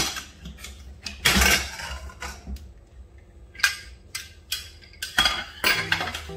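Hawkins stainless steel pressure cooker being opened after its pressure has dropped: the lid is unlocked and lifted off with sharp metal clicks and clanks, the loudest a half-second clatter about a second and a half in, then a few lighter metallic knocks.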